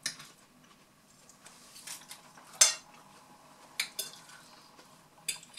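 Forks and knives clinking and scraping against dinner plates, a handful of separate clinks, the sharpest about two and a half seconds in.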